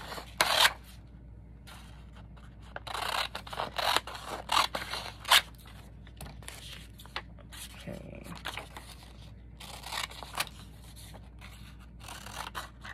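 Scissors snipping through a sheet of printed paper in several short runs of cuts, with quiet pauses between them.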